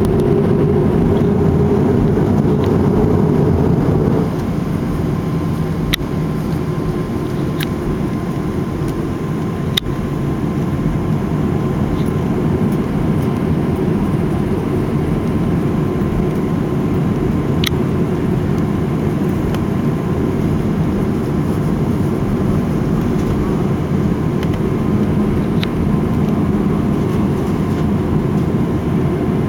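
Steady jet airliner cabin noise on the ground after landing, with the engines running at low power as the plane taxis. The noise drops a little about four seconds in. There are a few faint clicks.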